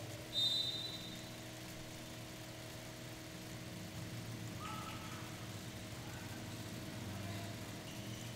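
A short, sharp referee's whistle blast about half a second in, the signal to serve, over a steady low electrical hum.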